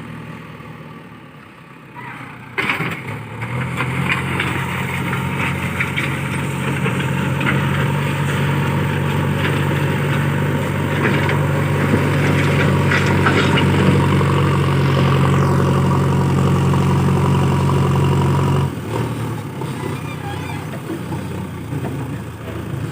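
JCB 3DX backhoe loader's diesel engine at low revs, then revving up sharply and holding high under working load, with scattered knocks. It drops back to a lower speed near the end.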